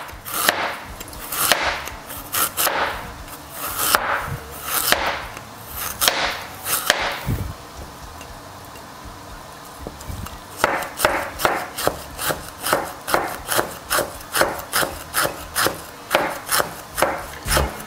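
Cleaver slicing peeled ginger on a plastic cutting board: uneven strokes at first, a pause of about three seconds near the middle, then steady chopping at a little over two strokes a second as the slices are cut into matchsticks.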